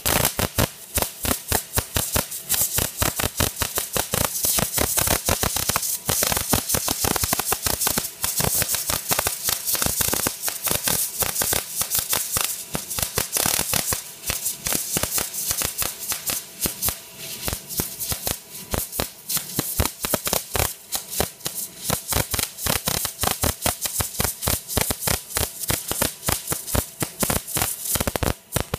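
MIG welding arc crackling: a loud, dense, uneven stream of rapid sharp crackles as the wire feeds into the weld pool.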